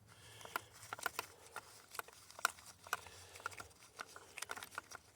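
Light, irregular clicks and taps of a wrench and socket working the steering wheel's 19 mm centre bolt out. The bolt is already loosened, and the clicks come about two or three a second.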